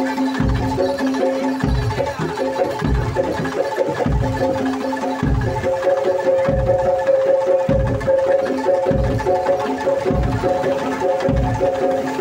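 Live Javanese gamelan-style music: metal mallet percussion rings out sustained pitches over deep drum strokes that land about once a second.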